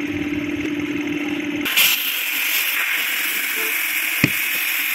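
A steady machine hum, which about a second and a half in gives way to a steady hiss of compressed air blowing from an air hose into the gap between a tubeless truck tyre's bead and its steel rim, inflating the tyre to seat the bead. A single sharp click sounds near the end.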